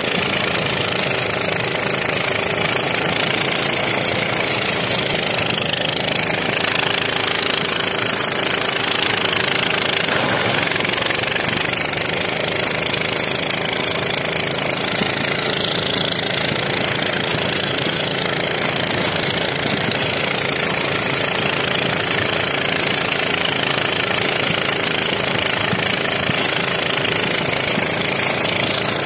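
Small petrol engine of a tracked motorized towing sled running steadily under load as it pulls a cargo sled over snow, with a constant high hiss over it.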